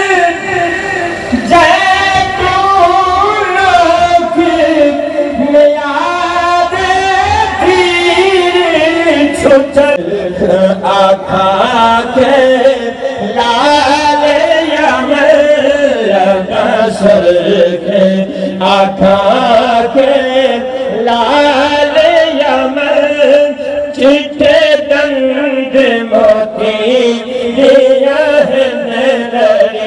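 Sufi devotional chanting: voices sing long, slowly bending melodic lines without pause, with a steady low hum beneath them in places.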